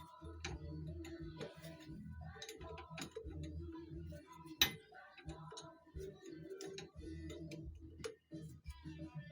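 Background music playing, with a few sharp metallic clicks of a wrench on steering-hose fittings, the loudest about four and a half seconds in.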